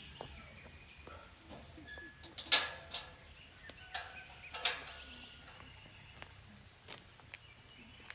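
Sharp metallic clanks from a tall metal-bar gate as its latch and bars are worked open: two pairs of knocks about a second and a half apart, the first the loudest.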